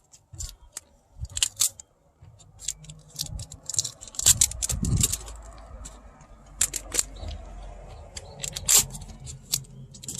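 Hand-handling noise from speaker parts and wiring being fitted: irregular sharp clicks, taps and light rattles, with the louder clicks about four to five seconds in and again near nine seconds.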